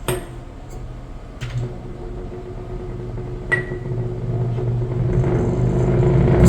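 A small electric motor humming steadily and growing gradually louder, with a few sharp clicks along the way.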